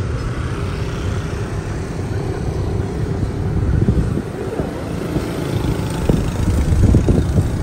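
Steady low rumble of a road vehicle on the move, engine and tyre noise.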